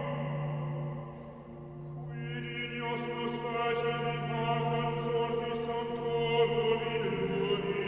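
Choral chanting: voices holding long sung notes over a steady low drone, moving to a new chord about two seconds in. A few short sharp ticks sound in the middle.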